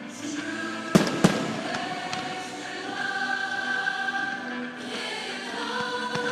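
Two sharp firework bangs about a second in, a quarter of a second apart, with a few fainter pops after, over choral music with long held sung notes.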